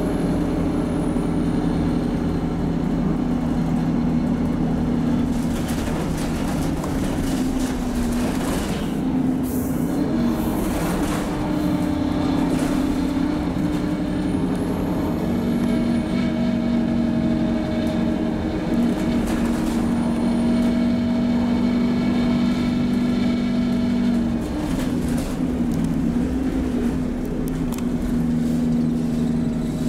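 Alexander Dennis Enviro200MMC single-deck bus heard from inside the passenger saloon: diesel engine and Allison automatic gearbox running steadily under way. The engine note dips and changes twice, about a third of the way in and about three quarters through, with some rattling in the cabin around the first change.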